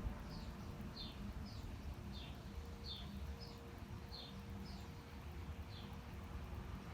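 A small songbird chirping over and over, short chirps that each drop in pitch, about one every half second. Underneath runs the low steady rumble of distant city traffic.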